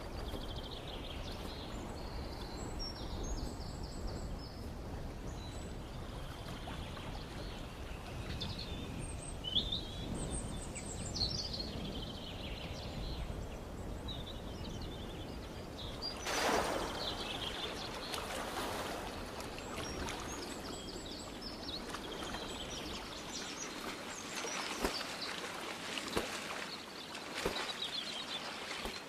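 A bird chirping in short, scattered calls over a steady background noise. Just past halfway there is a brief loud rushing noise.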